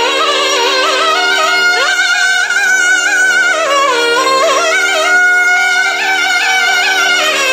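Nadaswarams playing a Carnatic melody that bends and glides between notes, over a steady drone.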